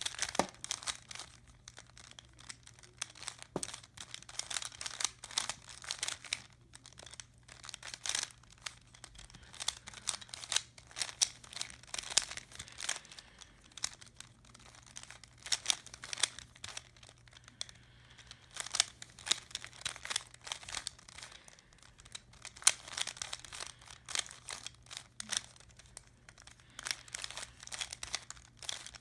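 Rubik's Cube being turned by hand: rapid, irregular plastic clicks and clacks of the layers rotating, in quick flurries with short pauses.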